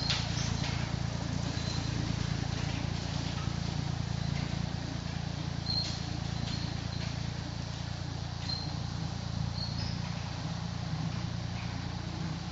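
1958 Massey Ferguson 35 tractor running steadily with its bush hog working, a low drone, with a few sharp snaps and short high chirps on top.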